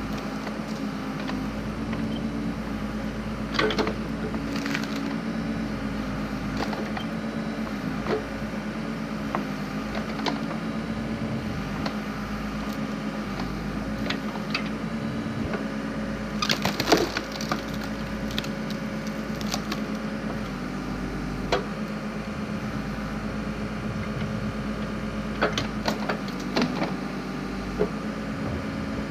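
Backhoe engine running steadily while a backhoe-mounted splitting wedge forces through firewood logs, with several sharp cracks and splintering snaps of the wood giving way, the loudest a little past halfway.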